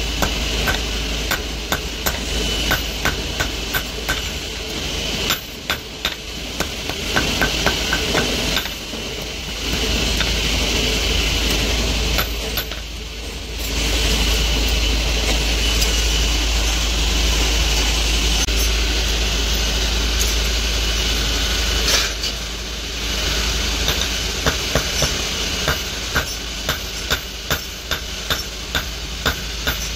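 Hand hammer striking a red-hot steel plier blank on a small anvil block. The blows come in quick runs, often about two a second, with a longer lull in the middle, over a steady mechanical hum.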